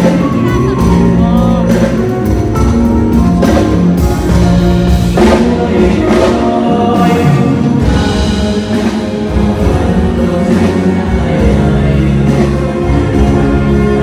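Loud live music with a singer over a steady backing beat, sung into a microphone on stage.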